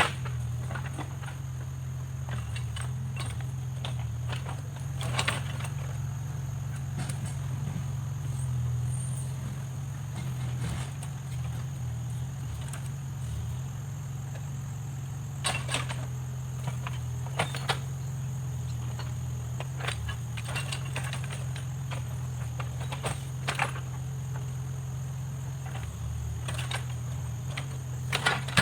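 Backhoe loader's diesel engine running steadily, with scattered sharp clanks and knocks over it.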